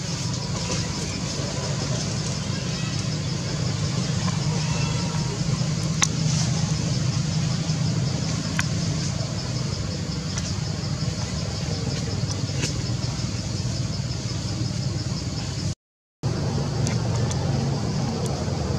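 Steady outdoor background noise: a constant low rumble with a high, finely pulsing buzz above it and a few faint clicks, cutting out completely for about half a second near the end.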